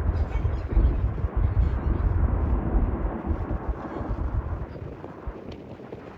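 Jet airliner's deep rumble, fading away over a few seconds.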